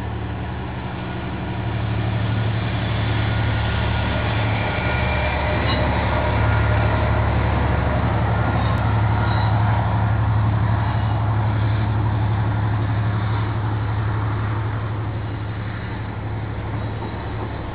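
KiwiRail diesel-electric freight locomotive passing at close range with a steady low engine drone, along with the rumble of the freight wagons on the track. It grows louder over the first couple of seconds, is loudest midway as the locomotive goes by, then eases as the wagons follow.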